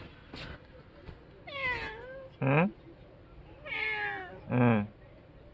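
Orange tabby cat meowing in two rounds. Each round is a drawn-out, wavering meow followed by a short, louder call that drops in pitch.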